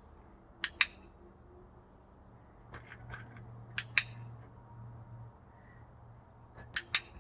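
Hand-held dog-training clicker clicked four times at uneven gaps, each a sharp double click-clack. Each click marks a food reward for a puppy being taught that the click means food (charging the clicker).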